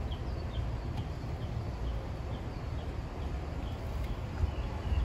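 A small bird chirping over and over, short high chirps about twice a second, over a steady low rumble of wind on the microphone.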